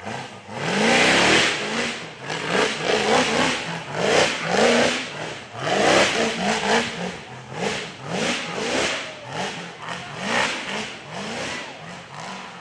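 Side-by-side UTV engine revved over and over in short bursts, each a quick rise in pitch, over a loud rough hiss.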